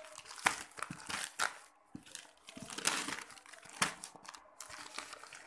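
Plastic courier mailer bag crinkling and crackling in irregular sharp bursts as a cardboard box is pulled out of it.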